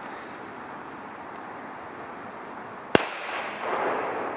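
A single sharp, loud bang from a flash-powder mini firecracker about three seconds in, followed by a strong echo that swells back about a second later.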